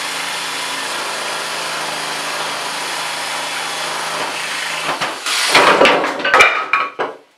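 Craftsman jigsaw with a coarse wood-cutting blade sawing through half-inch cement board: a steady motor whine and blade rasp. About five seconds in the cutting noise gives way to a louder, irregular run of knocks and scrapes as the board is tipped up and the wooden support blocks shift.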